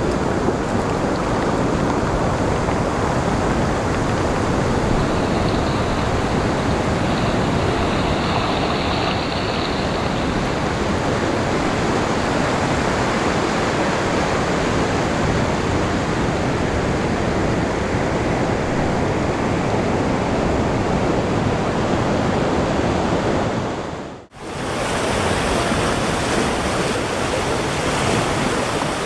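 Loud, steady rushing noise of stormy weather, cutting out for a moment about 24 seconds in and then resuming.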